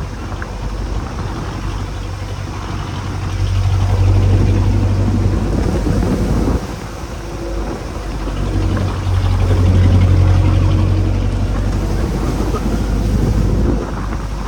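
A fishing boat's engine running at sea, its low hum growing louder twice, over a wash of water and wind noise.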